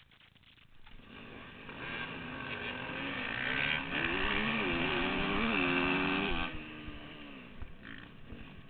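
Off-road dirt bike engines pulling away at a race start. From about a second in the sound builds, and the nearest engine revs up and down through the gears, loudest between about three and six and a half seconds, then eases off suddenly.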